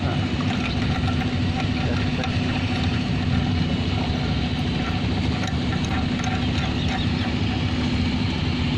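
A tugboat's engine runs steadily: an even low drone with a constant hum. A few light clinks come from the rusty fender chain and shackle as they are handled.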